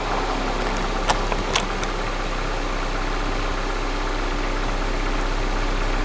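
Exhaust of a 1998 Ford Escort's 2.0-litre single-cam four-cylinder idling steadily, heard close at the tailpipe. Two light clicks come about a second in.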